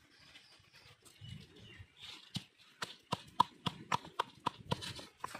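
Stone pestle pounding dried red chillies in a stone mortar: sharp knocks with a short ring, about three to four a second, starting about two seconds in.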